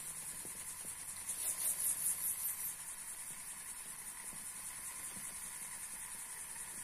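Small model steam engine hissing steadily as steam vents, with its pop-off valve starting to open under rising boiler pressure. The high hiss swells for about a second, around two seconds in.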